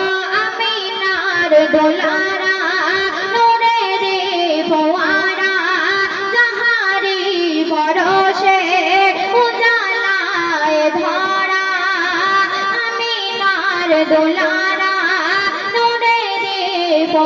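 A young girl singing a Bengali gojol, an Islamic devotional song, into a microphone: one ornamented melody line with wavering, held notes.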